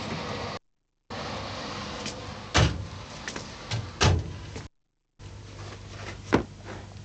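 Two loud thumps about a second and a half apart, with a few lighter clicks and knocks, over a steady tape hiss. The hiss cuts to dead silence twice, briefly, at the edits.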